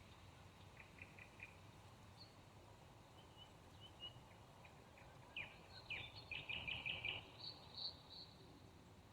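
Small birds chirping faintly over a low steady hiss: a few short notes about a second in, scattered chirps, then a quick run of repeated chirps about six to seven seconds in.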